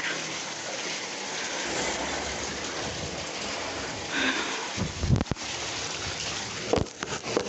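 Water running from a bathtub faucet into the filling tub, a steady rush. A few knocks and bumps cut in about five seconds in and again near seven seconds.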